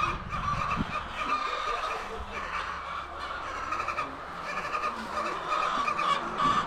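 A flock of chickens clucking and calling over one another in a continuous chatter as they are fed.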